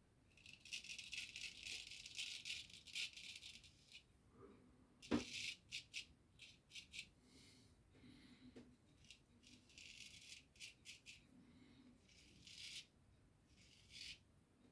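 Razor blade scraping through lathered stubble in quiet, raspy strokes on the third and last pass of a wet shave: one long run of strokes, then shorter separate ones, with a sharp click about five seconds in.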